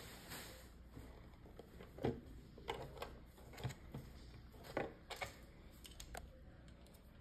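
Small plastic Lego pieces being handled and snapped together: irregular light clicks and taps, the sharpest about two seconds in.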